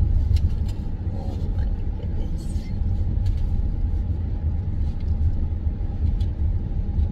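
Steady low road and engine rumble inside the cabin of a car driving along, with a few faint clicks.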